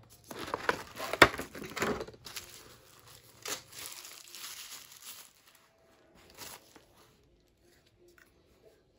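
Packaging rustling and crinkling as the white wrapping and clear plastic tray are handled and pulled off a small device. It is loudest in the first two seconds, with a sharp crackle about a second in, then lighter rustling that fades out, and one short rustle a little later.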